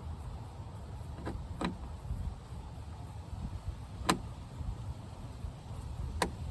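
About four sharp clicks and taps of a screwdriver working a screw out of a van's interior door panel, over a low steady rumble.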